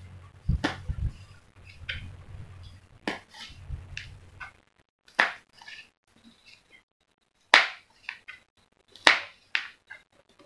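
A kitchen knife slicing large red chilies on the diagonal on a plastic cutting board, with a sharp tap each time the blade meets the board, at an uneven pace.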